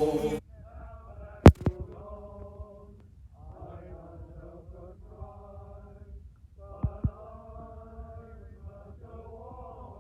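Male voice choir singing in held notes and sustained chords, phrase after phrase with short breaks. A loud noisy burst at the very start and a few sharp clicks, the loudest about one and a half seconds in and two more near seven seconds, cut across the singing.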